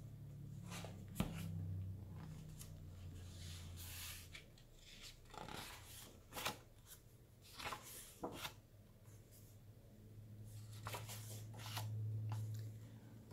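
Pages of a paperback picture book being opened and turned by hand: a series of short, faint paper rustles and brushes, spread irregularly, over a low steady hum.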